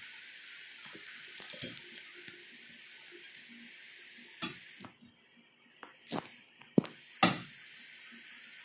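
Crockery being handled: a plate and bowl knocking and clinking lightly now and then as fries are tipped out onto a plate, the sharpest knocks a few around six to seven seconds in, over a faint steady hiss.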